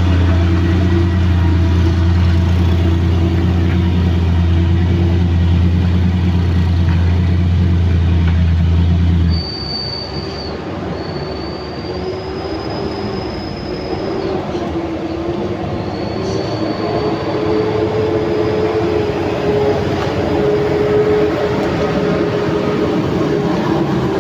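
Heavy diesel vehicle engine running with a steady deep hum, which cuts off abruptly about nine seconds in. Road noise follows, with a wavering mid-pitched whine and a high, thin squeal heard in two stretches, typical of heavy-vehicle brakes.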